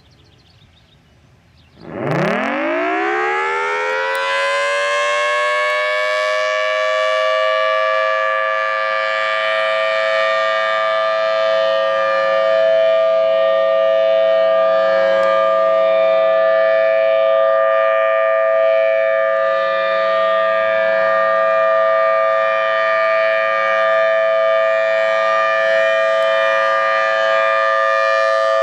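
Federal Signal Thunderbolt 1003 tornado siren starting up during a siren test about two seconds in. Its pitch glides up fast, then settles into a loud, steady two-tone chord.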